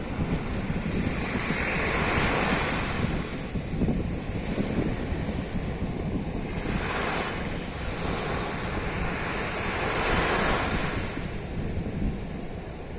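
Ocean waves breaking and washing on a beach, swelling and fading in slow surges, with wind buffeting the microphone as a low rumble.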